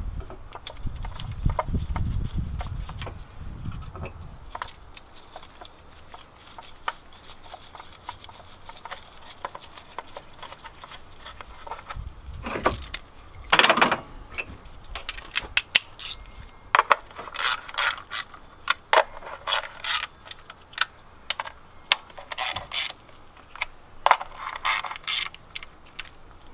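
Hand socket ratchet clicking in quick runs as bolts are run in and tightened during reassembly of a Honda B16A2 engine, with a low rumble during the first few seconds.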